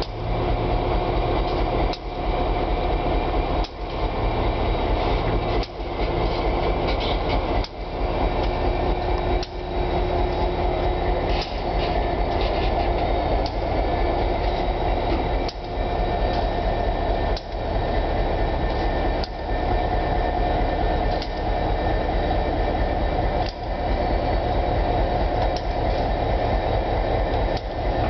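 Slow freight work train passing: a diesel locomotive, then rolling freight cars, making a steady low rumble with a regular knock about every two seconds.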